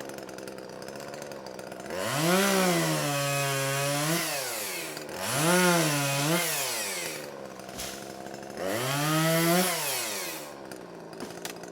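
Chainsaw idling, then revved and run through three cuts in a row. Each time the pitch climbs, sags and holds lower as the chain bogs in the wood, then rises again as it frees up before falling back to idle. This fits felling or bucking small trees.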